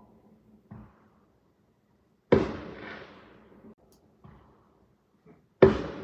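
Fireworks exploding: two loud booms about three seconds apart, each dying away in a long rolling echo, with fainter bangs before and between them.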